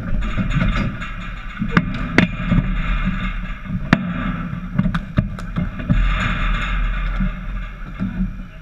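Dek hockey sticks clacking against the ball and the plastic tile court during play, with about half a dozen sharp hits in the middle of the stretch, over a steady noisy background.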